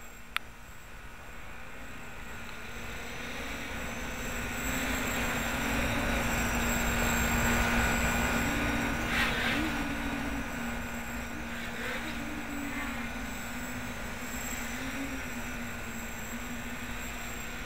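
Homebuilt quadcopter's four 900 kV brushless motors spinning 8x5 props in flight. A steady hum whose pitch wavers up and down with throttle corrections, growing louder towards the middle and easing off again.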